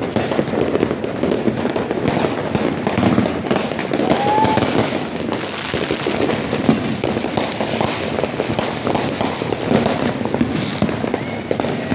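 Fireworks and firecrackers going off nonstop, a dense stream of rapid cracks and pops.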